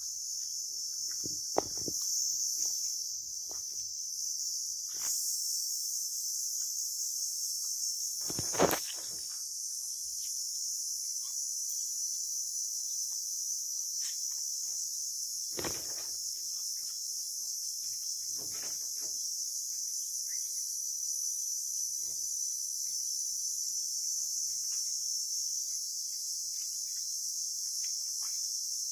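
A steady, high-pitched chorus of insects, with scattered soft knocks and rustles and one sharper knock about nine seconds in.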